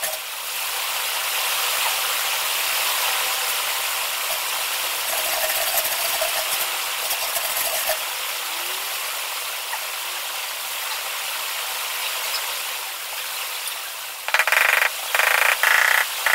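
A steady hiss, then from about 14 seconds in a run of loud rasping strokes, each roughly a second long. This fits a large ceramic floor tile being worked back and forth by hand to seat it in its mortar bed.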